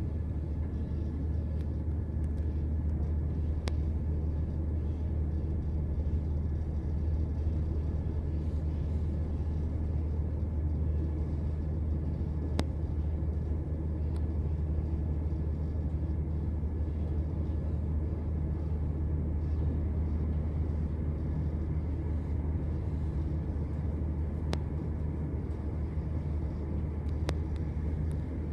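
Steady low rumble and hum inside a moving passenger train carriage, with a few faint clicks now and then.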